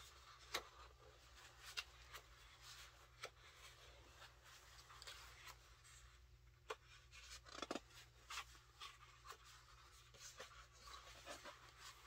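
Faint rustling and soft ticks of heavy glossy photobook pages being handled and turned by hand, with a small cluster of louder rustles just before the 8-second mark.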